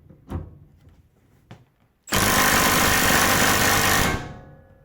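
Milwaukee M12 stubby impact wrench hammering in reverse against an electronic torque tester for about two seconds, then winding down. A couple of small clicks come before it.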